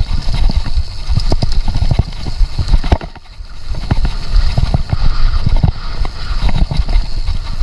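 Downhill mountain bike rattling and knocking over a rough trail: rapid irregular clatter and thuds over a heavy low rumble, easing briefly about three seconds in before the clatter resumes.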